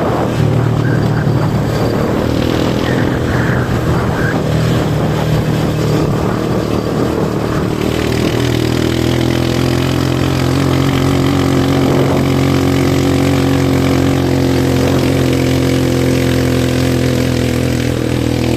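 An engine running steadily at a constant speed, its tone shifting slightly about eight seconds in.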